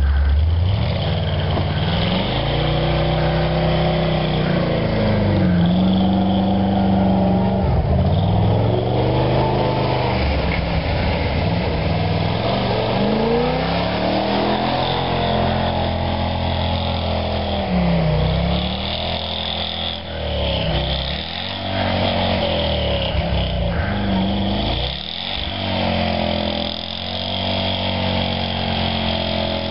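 Willys pickup truck's engine revved up and down over and over as the truck ploughs through deep snow, its wheels spinning and throwing snow.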